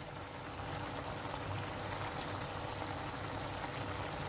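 Chicken pieces for brown stew sizzling steadily in the pot, cooking in oil and their own juices with no water added yet.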